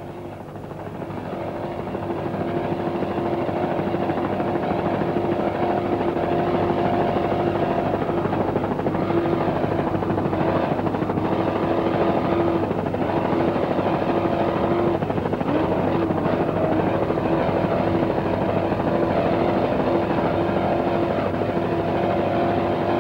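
Engines running at a steady high drone, fading up over the first couple of seconds and then holding at one pitch, with a slight wobble in pitch about two-thirds of the way through.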